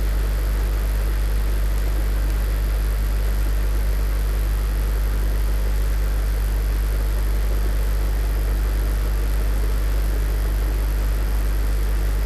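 A steady low hum with an even hiss behind it, unchanging throughout, with no tool clicks or knocks.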